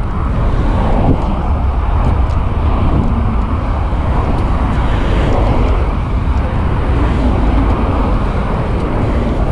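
Steady road traffic noise with a heavy, continuous low rumble.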